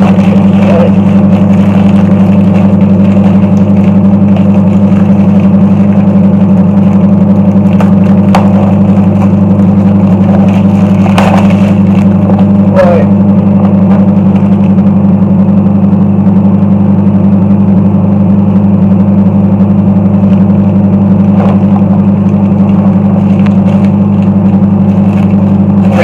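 Microwave oven running: a loud, steady low hum, with a few faint clicks about halfway through.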